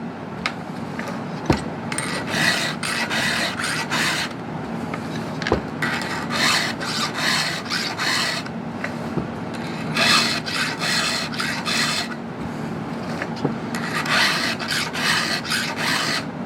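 Round hand file rasping across the cutters of a chainsaw chain in quick, even strokes. The strokes come in four runs of a few seconds each, with short pauses between them as the file moves from tooth to tooth.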